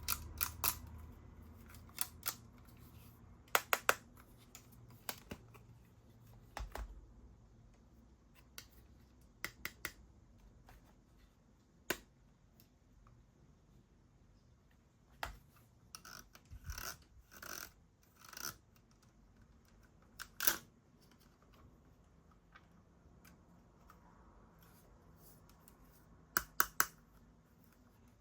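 Scattered sharp plastic clicks, often two or three in quick succession, and a few short rustles and scrapes as a mini desk fan and its packaging are handled.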